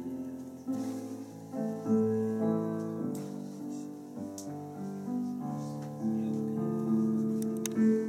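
Background piano music: slow, sustained notes and chords changing about every half second to a second.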